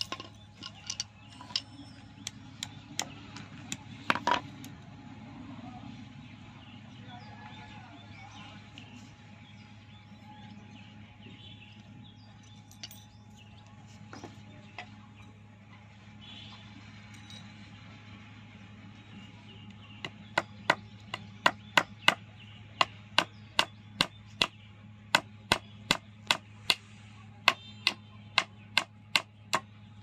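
Ball-peen hammer striking nails into a forked wooden branch: a run of about twenty sharp blows at roughly two a second in the last third. Before that come a few scattered clicks and taps from pliers working wire.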